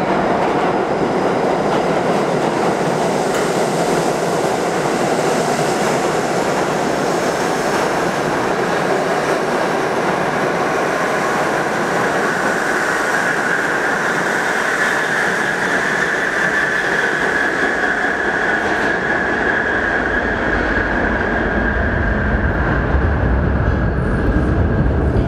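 A New York subway D train of R68 cars running through the station without stopping: a loud, steady rush of steel wheels on rail. A high steady squeal comes in about halfway through, and a deeper rumble builds near the end as the last cars run out into the tunnel.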